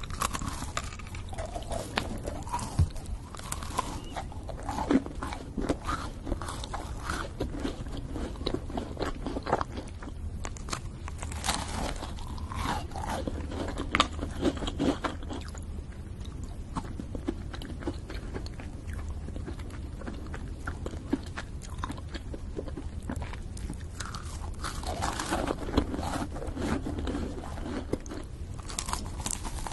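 Close-miked eating of French macarons: the crisp meringue shells crack and crunch on each bite, followed by soft, sticky chewing and mouth sounds. Bites and crackles come irregularly throughout, with clusters around the middle and near the end.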